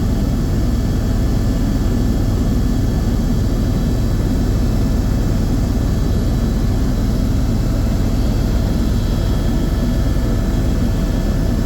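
Helicopter in flight, heard from inside the cabin: a loud, steady engine and rotor noise with a few faint steady tones above it.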